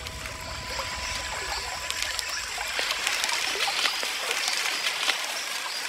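Natural rainforest ambience: a steady hiss like trickling water, with faint scattered chirps and clicks and a few thin steady tones.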